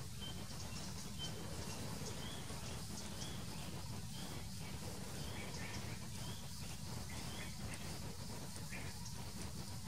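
Outdoor ambience: small birds giving short chirps again and again, with faint insect buzzing and a steady low rumble underneath.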